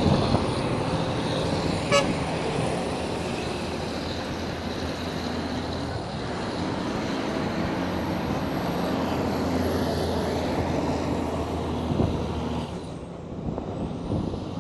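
Heavy truck's diesel engine running steadily under load, with a single sharp click about two seconds in and a brief drop in level near the end.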